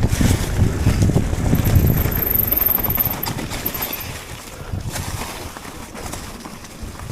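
Wind buffeting the microphone over the rattle and tyre noise of a mountain bike riding a rough trail, heaviest in the first three seconds and easing after.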